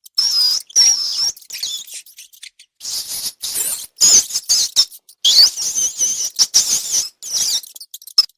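Rats squeaking: quick runs of short, high-pitched, wavering squeaks with brief gaps, pausing about two seconds in before starting again.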